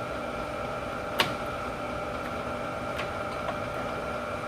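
PROMAX 26 by 90 gap lathe running steadily with a constant hum and whine, its carriage driven in threading feed off the half nut. A sharp click about a second in and a fainter one about three seconds in.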